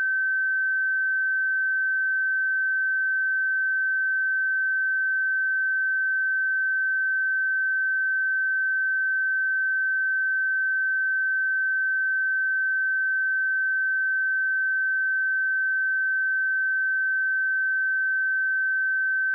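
A steady pure 1542 Hz sine-wave test tone, one unchanging high pitch held at constant level.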